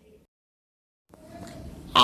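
Near silence: a moment of dead silence, then faint room noise, with a woman's voice starting a word at the very end.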